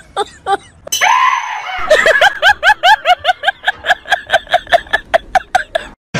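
A woman screaming: one long shriek about a second in, then a rapid string of short rising shrieks, about six a second, that cuts off just before the end.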